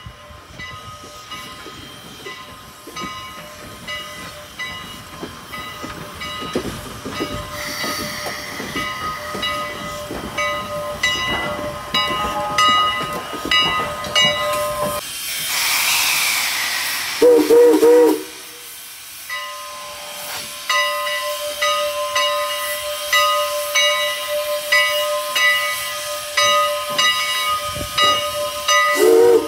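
Canadian National 89's 2-6-0 steam locomotive ringing its bell over and over as it moves. About halfway through there is a burst of steam hiss, then one short steam whistle blast. The bell goes on, and a second whistle blast starts right at the end.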